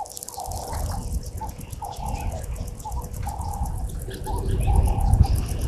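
Wild birds calling in short repeated notes over a fast, even high-pitched pulsing. A low rumble swells about four to five seconds in and is the loudest sound.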